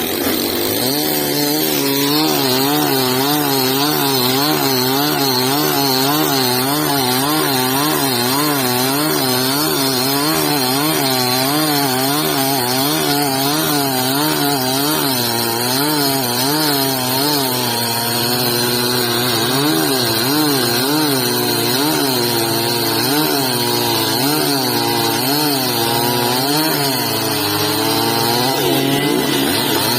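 Chainsaw running under load while cutting into a tree, its engine pitch rising and falling rhythmically as the chain bites into the wood.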